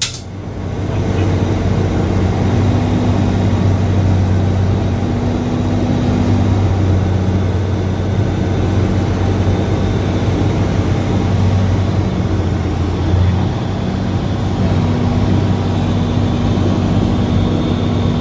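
Cirrus SR22's piston engine and propeller running steadily, a constant drone with a slight drop in level about two thirds of the way through.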